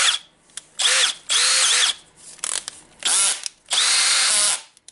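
Milwaukee M18 CBLDD brushless drill driver test-run with an empty chuck in about five short bursts, the motor spinning up and winding down with each trigger pull. It runs cleanly now that the broken motor ball bearing has been replaced.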